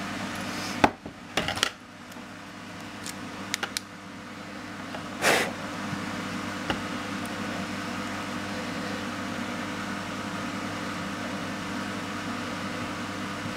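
A few sharp clicks and knocks of small metal tools and parts being handled against an air rifle's action, with a brief louder scrape about five seconds in, over a steady low hum.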